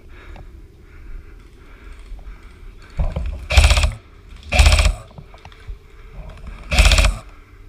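Airsoft electric rifle (AEG) firing short full-auto bursts, each about half a second of rapid mechanical chattering: three loud bursts, the first two about a second apart and the third about two seconds later.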